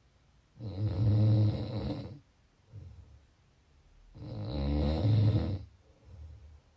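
A person snoring: two long, loud, low rattling snores on the in-breath, about three and a half seconds apart, each followed by a short, softer out-breath.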